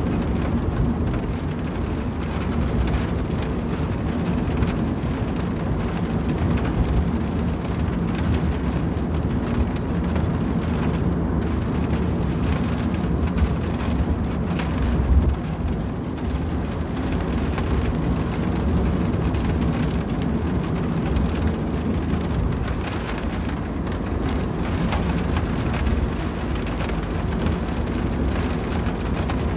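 A car driving in the rain: a steady low rumble of road and engine under the hiss of rain, with a short thump about halfway through.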